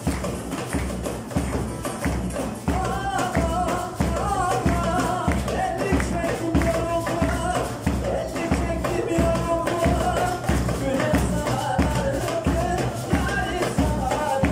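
Live Turkish folk music: a darbuka goblet drum keeps a steady beat with bağlama, maracas and audience hand-clapping, and a wavering melody line comes in about two and a half seconds in.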